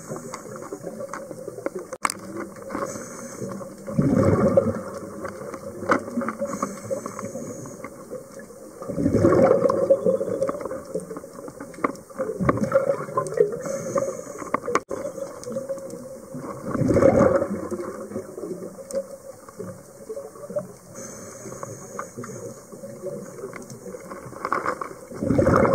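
A scuba diver's exhaled bubbles heard underwater: about five separate gushes of bubbling, a few seconds apart, over a steady faint hum.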